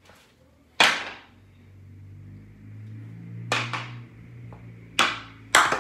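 Hockey stick shots on a plastic shooting pad: sharp cracks of the stick blade striking the puck, one about a second in, a quick double crack midway, and two more near the end, with a low rumble building between them.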